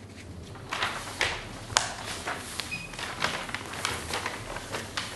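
Large printed paper sheets being handled and folded, a run of irregular crackling rustles starting about a second in.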